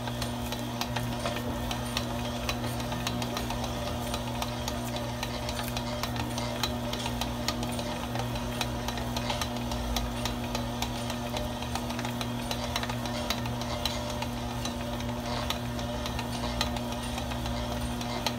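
Electric stand mixer running steadily with its dough hook kneading a stiff sweet bread dough, giving a constant motor hum with frequent light ticks and knocks. The dough is being kneaded to develop its gluten.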